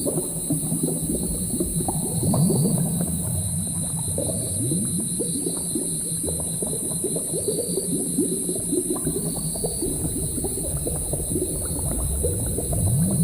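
Thick liquid bubbling and gurgling in a potion cauldron, many small bubbles popping in quick succession over a steady low hum and a constant high hiss.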